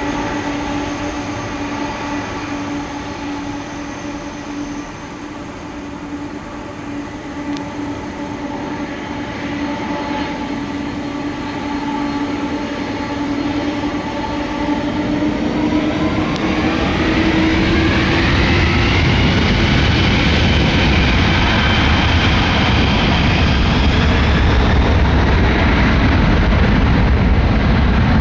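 Boeing 747-400F cargo jet's four turbofan engines whining steadily at low power, then spooling up a little past halfway: the whine rises in pitch and a loud, deep roar of takeoff thrust builds and holds.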